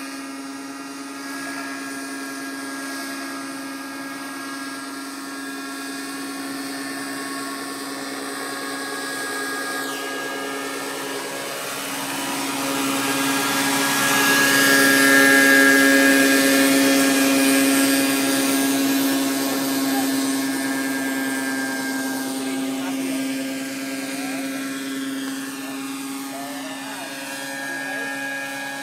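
Radio-controlled MD 500 scale model helicopter flying: a steady high whine of its motor and rotors. It grows louder toward the middle as the helicopter hovers low and close, then fades as it climbs away.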